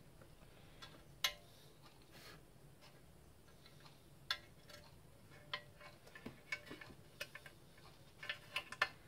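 Faint, scattered light clicks and taps as a painted Victa mower cover and its strap are handled and fitted, with the clicks coming a little more often near the end.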